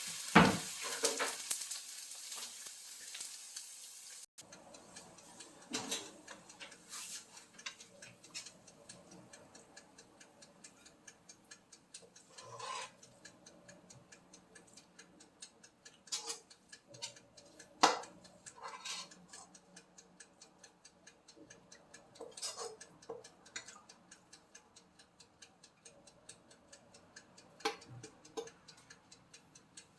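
Kimchi fried rice sizzling in a frying pan for the first few seconds, then cutting off abruptly. After that comes a steady, faint, clock-like ticking, broken now and then by knocks and clatters of utensils.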